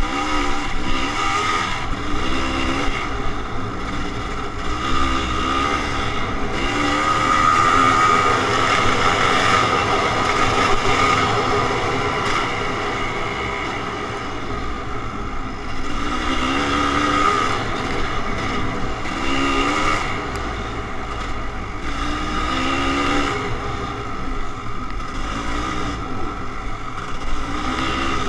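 Kawasaki KX500's two-stroke single-cylinder engine running under way, its note rising again and again in pitch as the rider accelerates, then dropping back as he eases off or shifts.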